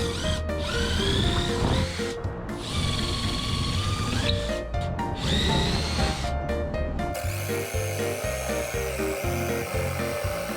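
Power drill boring holes in wood: three runs of one to two seconds, each whine rising in pitch as the drill spins up, then a longer continuous run from about seven seconds in, over background music.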